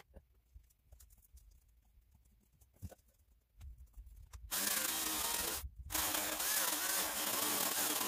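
Near silence with a faint click for the first four and a half seconds. Then a 15-amp corded electric chainsaw runs and cuts into a log, stops briefly just before six seconds, and starts cutting again.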